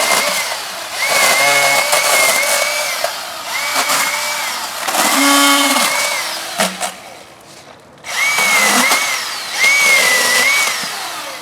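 Milwaukee M18 battery chainsaw running in about six short bursts as it cuts a small tree. Each burst starts with a rising motor whine and ends with a falling whine as the trigger is let go.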